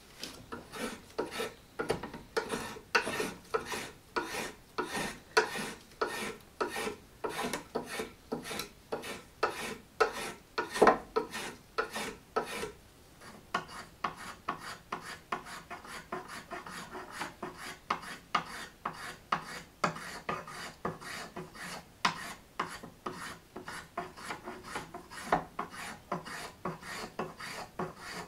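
Carving knife slicing green walnut wood in a steady run of short scraping strokes, two or three a second, quicker and lighter about halfway through.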